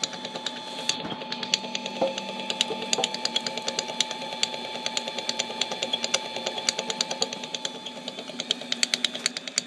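Mini metal lathe running, with a steady motor and gear whine and rapid, uneven clicking as a tap in a hobbing jig cuts teeth into the spinning bolt.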